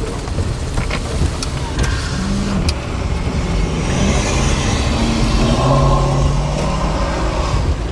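A car driving on the road: steady engine and tyre rumble, with the engine note rising as it speeds up about two seconds in and holding steady later. A few sharp ticks sound near the start.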